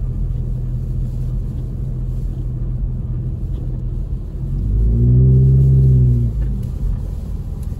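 Steady low rumble of a car driving on a wet road, heard from inside the car. About four and a half seconds in, a deeper pitched hum from an oncoming vehicle swells for about two seconds as it passes, then fades.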